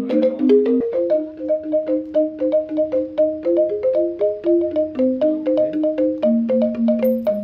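Background music: a quick, even run of short struck notes, about five a second, on a repeating melody.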